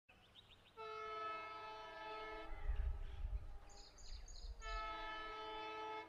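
Air horn of approaching twin WDG 3A ALCo diesel locomotives sounding two long multi-tone blasts, with a low rumble between them.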